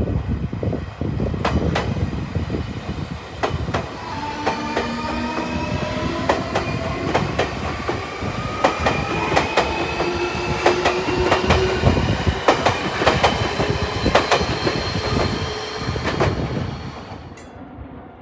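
Electric train passing, its wheels clicking over the rail joints while its traction motors give a whine that rises steadily in pitch as it accelerates; the sound fades away near the end.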